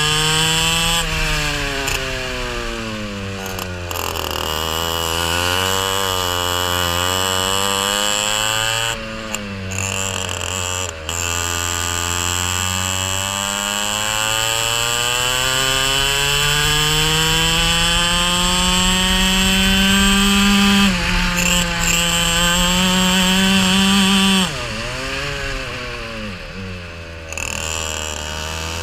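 Racing kart's engine heard from on board, revving up and down through a lap: the pitch climbs along the straights and drops off sharply into the corners. There is one long climb lasting several seconds, then a sudden drop about two-thirds of the way through.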